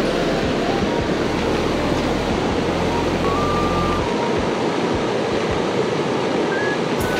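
Steady rush of a fast-running river.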